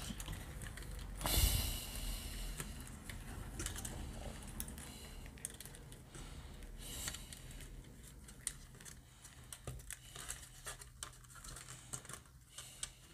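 Hands handling thin insulated wires and plastic computer-fan frames: scattered small clicks, taps and rustles as wire ends are gathered and twisted together, with a louder rustling bump about a second and a half in.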